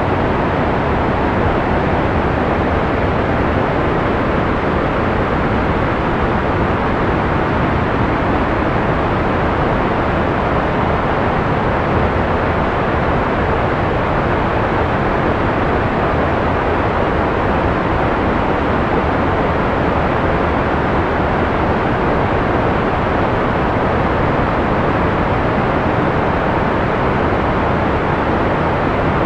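Steady, unbroken white-noise sleep track: an even hiss with the treble rolled off, so it sounds somewhat muffled, with no changes or events.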